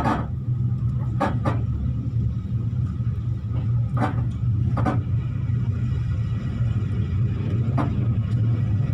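Diesel V/Line train heard from inside the carriage, running with a steady low rumble. About six sharp clacks come through at uneven gaps, some in close pairs, as the wheels cross rail joints and points.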